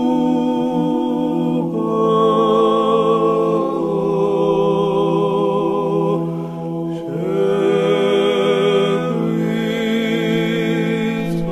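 Slow sung chant over a steady low drone, the voice holding long notes with vibrato and moving to a new note every few seconds, with a brief pause about seven seconds in.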